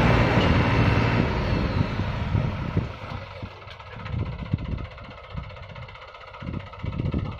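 Tractor's diesel engine running hard, powering the infielder's hydraulic tipping, then easing down and getting much quieter over a couple of seconds. After that come irregular low thumps.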